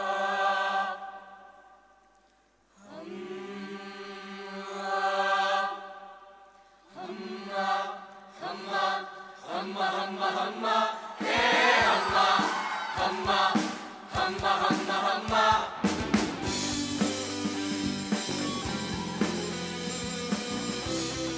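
Mixed choir singing sustained chords a cappella, swelling and fading, then breaking into shorter rhythmic phrases. About eleven seconds in, a rock band with drum kit and bass guitar comes in and plays along with the choir.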